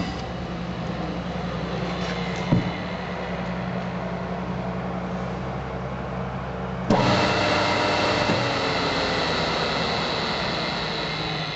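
MF25X knife grinding machine running with a steady electric hum and a sharp click about two and a half seconds in. About seven seconds in, a louder, higher-pitched running sound starts suddenly.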